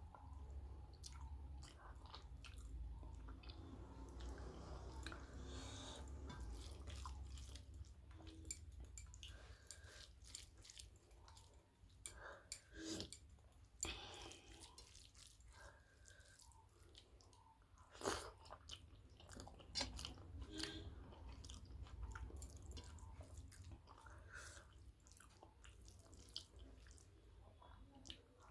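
Close-miked eating sounds: a person chewing and smacking on rice and curry, with many soft wet mouth clicks and a few sharper ones, over a faint low hum.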